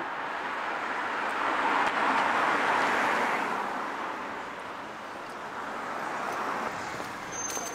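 Road traffic passing on a street: the tyre and engine noise of a passing car swells to a peak about two to three seconds in and fades away, and a softer second pass follows near the end.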